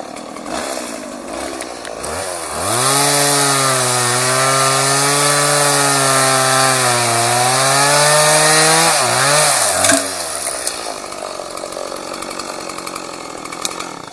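Chainsaw engine idling, then revved up about two and a half seconds in and held at high revs for about seven seconds, the pitch sagging slightly in the middle. It drops back to idle about ten seconds in.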